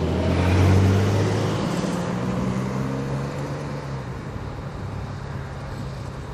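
EMD GP10 diesel-electric locomotive, with its 16-cylinder two-stroke 567 engine, running under power as it passes. The engine drone peaks about a second in and then fades steadily as the locomotive moves away.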